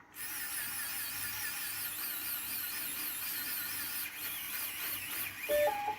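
The filament feeder's small electric motors run with a steady high whine that warbles in pitch as they drive filament through the feeder gears. Near the end a two-note rising beep sounds, the feeder's notification that the filament has gone through.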